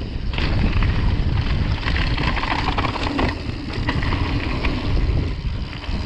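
Wind rushing over the microphone of a mountain bike descending a dirt and gravel trail, with the tyres rolling on the loose surface and small clicks and rattles from the bike.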